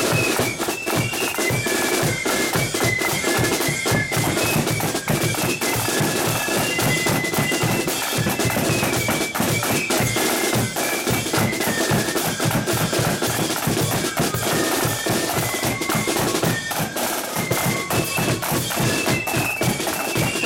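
Flute band playing a march: a high melody of flutes over snare drums rattling and a bass drum beating.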